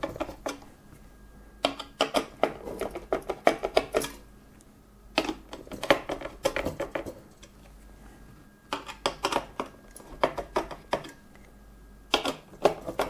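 Cross-head screwdriver turning the thumb screws of an Arctic Freezer 34 CPU cooler into its mounting standoffs: bursts of quick metallic clicks and taps in four spells, with short pauses between.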